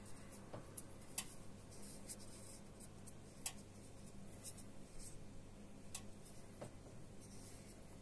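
Fingers handling and turning a champagne cork: faint rubbing with a few scattered light clicks, over a faint steady low hum.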